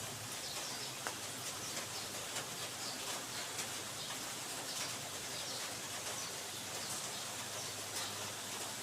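Steady low hum and hiss of background noise, with faint high chirps scattered through it.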